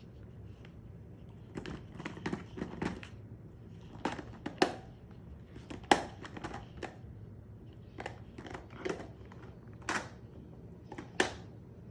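Puppy biting and pushing at a treat puzzle toy, making irregular clicks and clacks in small clusters as it works at the pieces.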